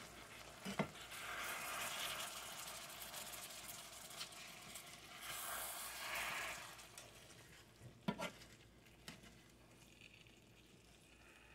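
Ground beef with onions and peppers browning in a cast-iron skillet, sizzling faintly as a spatula stirs and scrapes through it for about seven seconds. The spatula knocks against the pan about a second in and again about eight seconds in.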